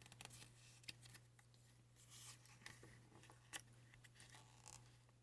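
Near silence: room tone with a faint steady hum and a scatter of soft clicks and rustles.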